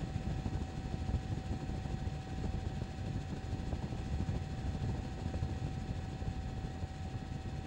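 Helicopter rotor and engine noise, a steady low rumble with a constant whine running through it.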